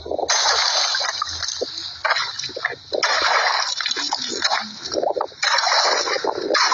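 Shallow pool water splashing and sloshing in a series of bursts, each about a second long, as a long-handled pick is swung down into the water's edge.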